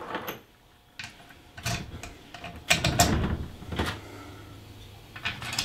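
Scattered light clicks and knocks from screws and a screwdriver being handled against a moulded case circuit breaker's plastic cover on a workbench. The screws are being put back in to close the breaker's cover.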